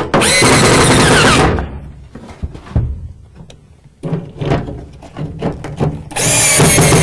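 Power drill driving screws into a sauna heater cover: two loud runs of motor whine, one at the start and one near the end, each lasting about a second and a half and shifting in pitch under load. In between come a few knocks and clunks.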